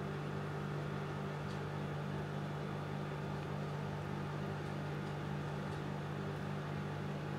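A steady low hum with a faint hiss, unchanging throughout, like a running appliance or fan.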